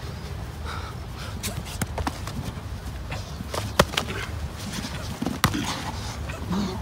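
Several sharp slaps and thuds of MMA-glove strikes and bodies colliding during a stand-up exchange and clinch, the loudest hit a little before the middle, over a steady low rumble.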